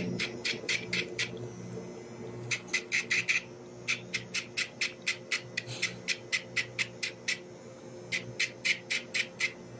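A cordless pet nail grinder running with a steady low hum as it files a Shiba Inu puppy's claws. Over it, runs of sharp clicks, about five a second, start and stop several times.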